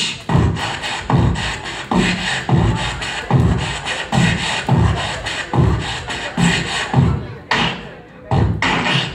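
Vocal beatboxing into a handheld microphone cupped to the mouth: a steady beat of bass-drum kicks, about two a second, with snare and hi-hat sounds between them, and a brief pause near the end.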